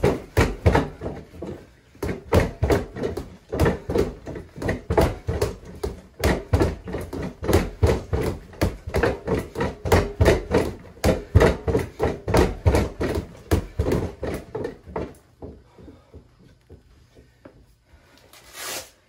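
Gloved punches thudding on a freestanding Everlast punching bag in quick flurries, about three or four hits a second, stopping about 15 seconds in. A short loud rush of noise comes just before the end.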